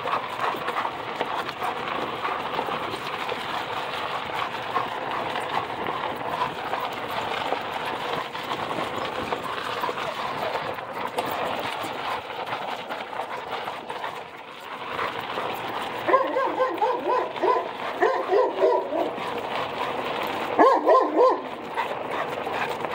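A dog barking in two quick runs of short barks, about two thirds of the way through and again shortly before the end, over a steady background hiss.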